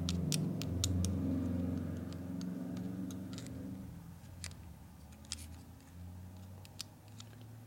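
Light metallic clicks and ticks, scattered irregularly, as a screwdriver works against the keyed gear and shaft of a billet aluminium oil pump while the gear is pushed on. Under them a low droning hum is loudest in the first few seconds and then fades away.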